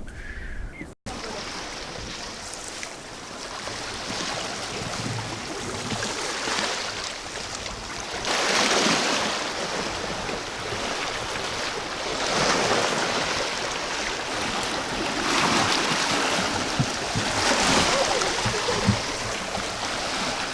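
Rushing water noise with no spoken words, swelling louder and easing off every three to four seconds.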